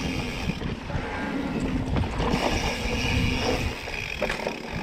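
E-bike rolling along a dirt trail: the tyres rumble and the bike rattles over the ground, with wind buffeting the microphone.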